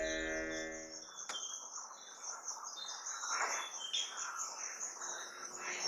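Birds chirping over a steady high insect trill, a nature-sound background. A held musical chord dies away in the first second.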